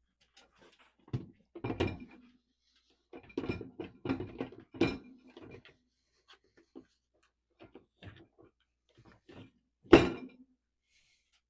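Dishes being loaded into a dishwasher's racks: irregular clinks and knocks of dishware set down against the racks and each other, with the loudest clunk about ten seconds in.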